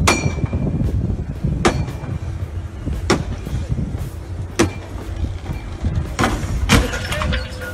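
A sailing yacht's hull knocks hard against a concrete quay wall about six times, a second or so apart. Under the knocks is a steady low rumble from the engine churning water with its propeller.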